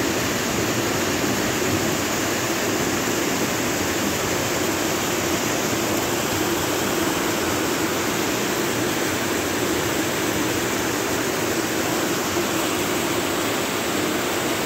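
Heavy rain and a torrent of brown floodwater rushing down a street, a loud, steady noise of water.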